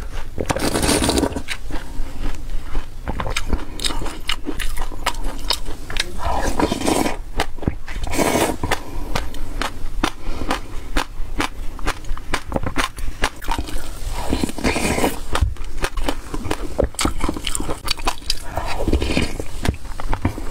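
Close-miked eating of a thick sesame and passion-fruit yogurt from a plastic tub: a steady run of small crackles and crunches from chewing the seeds. There are several longer slurping sips, the first right at the start, and a plastic spoon scrapes the tub.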